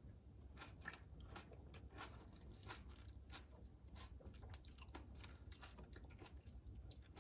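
Faint, wet crackles and squishes of ripe heirloom tomato flesh: many short, irregular clicks, several a second.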